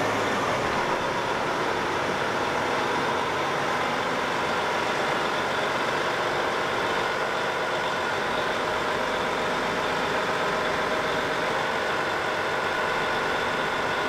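John Deere 9460R four-wheel-drive tractor's diesel engine running steadily at low revs as the tractor backs slowly into place.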